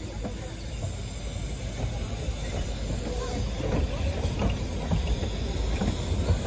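Mocănița narrow-gauge steam train pulling away, its wagons and coaches rumbling past on the rails. Irregular clicks and clanks of wheels and couplings get louder as the train gathers pace.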